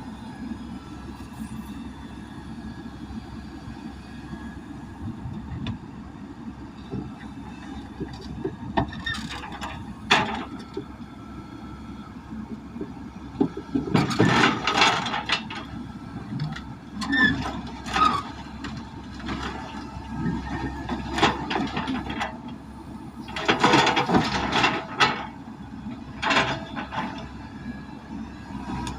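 Heavy machinery engine running steadily, with a series of loud, short clanking and scraping noises several times in the second half, typical of an excavator being driven off a truck.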